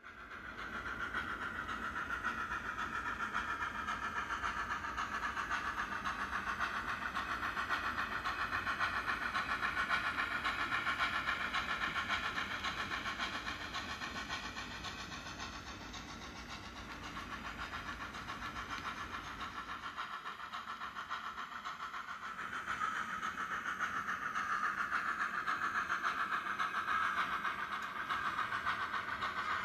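HO-scale brass NSWGR Z25 steam locomotive running with a DCC sound decoder, its recorded steam-engine running sounds playing from an onboard speaker along with the model's wheels on the rails. It gets louder and softer twice as the train passes.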